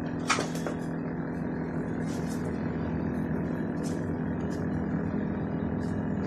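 Metal and plastic kitchen utensils clinking and knocking as they are picked up and sorted by hand, a few separate clicks with the sharpest about a third of a second in, over a steady low hum.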